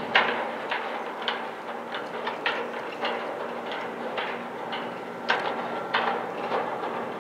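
Steady low hum of a departing cargo ferry's engines, with irregular sharp clicks about once or twice a second.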